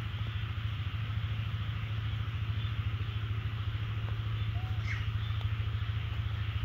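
An engine running steadily at idle: a low, evenly pulsing hum with a constant higher hiss, and a couple of faint short chirps about five seconds in.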